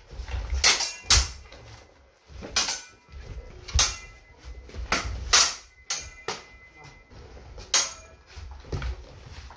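Steel sabres clashing in armoured sparring: about ten sharp metallic clangs at irregular intervals, a few followed by a brief ring from the blade, with low thuds of feet and armour on the floor.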